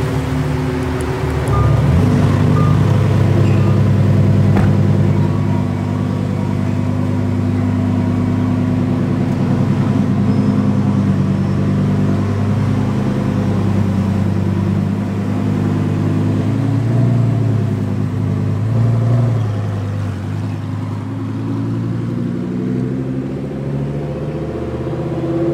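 Lamborghini Huracán Performante's V10 engine on its stock exhaust, running at low, fairly even revs as the car moves off, getting louder about two seconds in.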